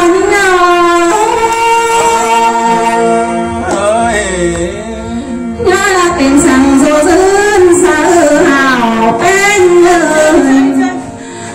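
A woman singing a Thái folk song into a microphone, in long drawn-out notes that waver and glide. The voice drops away briefly near the end.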